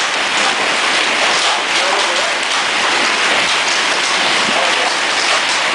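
Heavy storm downpour of rain and hail pelting down, a steady dense hiss with scattered small ticks.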